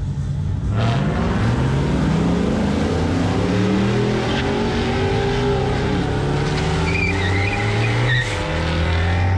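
A drag-racing car launching hard from the start line about a second in and accelerating away down the strip, its engine note climbing in pitch as it pulls away. Other engines run in the background, and a brief high warbling sound comes near the end.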